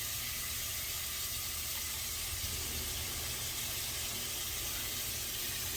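Beef stew meat frying in hot canola oil in a pan, sizzling with a steady hiss.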